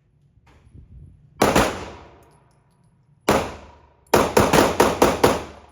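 Pistol shots echoing in an indoor firing range: two single shots about two seconds apart, then a rapid string of about six shots in just over a second.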